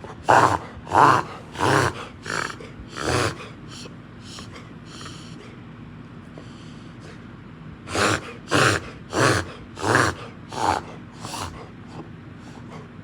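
Black Labrador retriever coughing with kennel cough: two fits of about six harsh hacks each, a little under a second apart, with a pause of a few seconds between them.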